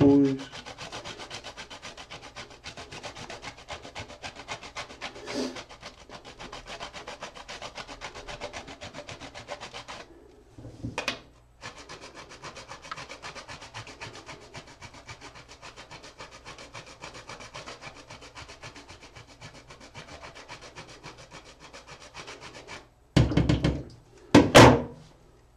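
A bar of laundry soap being grated on a metal box grater, with quick, even rasping strokes that pause briefly partway through. Near the end, two loud knocks.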